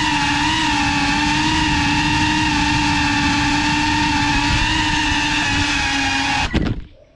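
GEPRC CineLog35 FPV cinewhoop's motors and propellers running in a steady whine that wavers slightly in pitch. About six and a half seconds in, the drone sets down, the whine falls away and the motors cut off.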